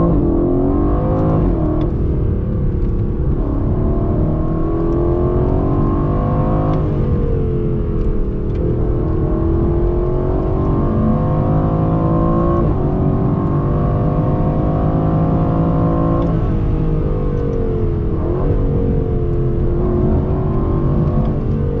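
The 2020 Aston Martin Vantage's AMG-derived 4.0-litre twin-turbo V8 is heard from inside the cabin under full throttle. Its note climbs in pitch and drops suddenly at each of several quick upshifts of the ZF 8-speed automatic.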